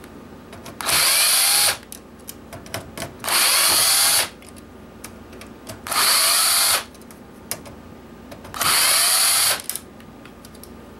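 Cordless drill-driver backing screws out of a PlayStation 3's metal shielding: four short runs of the motor, each about a second long and roughly two and a half seconds apart. Small clicks of screws and metal being handled fall between the runs.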